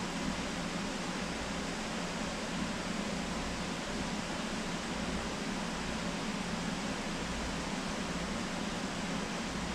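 Steady whir of an electric fan running: an even hiss with a low hum underneath.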